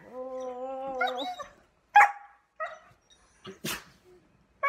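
Husky vocalizing: a held, slightly wavering howl-like call of about a second, then a sharp bark about two seconds in and a shorter yelp after it, with a brief noisy burst near the end.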